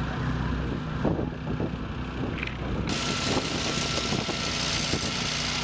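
Emergency-vehicle engines idling with a steady low hum at a wildfire scene. About three seconds in, a loud steady hiss cuts in suddenly over the engine hum.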